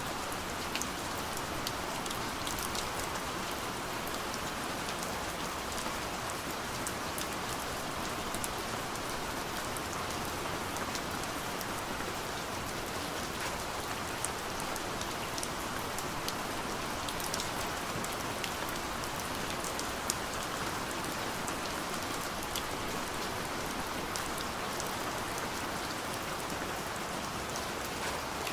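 Steady gentle rain falling, with scattered light drop ticks against a window.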